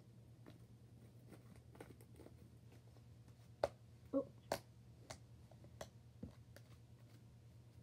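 Hands working fluffy slime: scattered faint clicks and small pops, with three or four sharper snaps in the middle. A steady low hum lies underneath.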